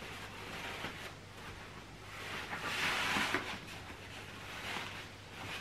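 Fabric rustling and shuffling as a cloth cover is pulled over and fitted onto a travel pushchair's seat, swelling loudest about halfway through.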